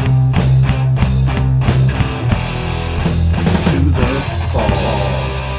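Heavy rock band playing without vocals: distorted guitars and bass holding low notes under a run of repeated drum hits, which give way to sustained chords about four and a half seconds in.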